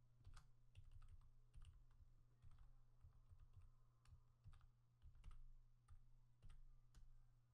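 Faint typing on a computer keyboard: a quick, uneven run of key clicks, about three a second.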